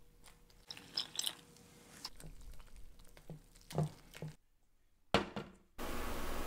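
Water poured from a plastic cup into flour in a stainless steel bowl, then a wire whisk stirring the wet mix, with wet squishing and light clicks and scrapes against the bowl. Near the end a sharp click, then a steady hiss of background noise comes in.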